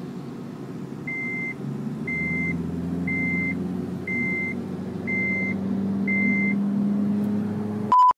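Engine and road noise inside a moving car, the engine note slowly rising, with six short high beeps about once a second over it. Near the end a brief louder tone sounds, then the sound cuts off to silence.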